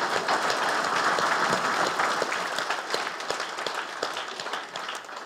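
Audience applauding, the clapping dense at first and thinning and fading toward the end.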